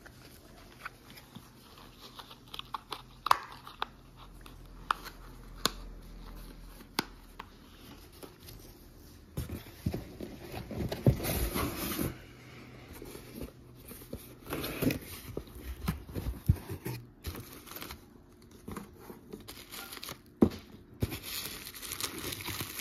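Cardboard boxes and bubble-wrap packaging being handled: scattered light taps and knocks at first, then repeated bursts of crinkling and rustling from about ten seconds in.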